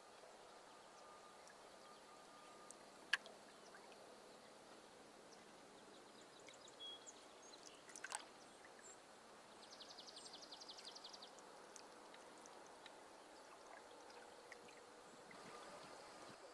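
Quiet open-water ambience from a canoe: faint steady hiss, broken by a sharp knock about three seconds in and a softer knock near eight seconds. Around ten seconds comes a short, fast, high trill of rapid even pulses.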